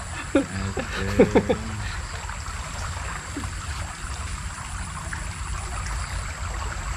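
Steady rushing of a small river's flowing water, with a low rumble underneath and a short murmured voice in the first two seconds.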